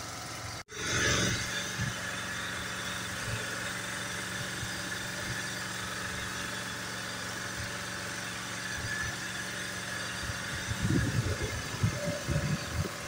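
An engine running steadily at idle, a constant low hum, cut off for a moment well under a second in, with low rumbling bumps near the end.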